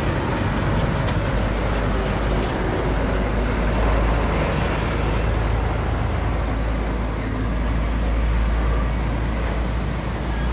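Steady street traffic noise with a continuous low rumble.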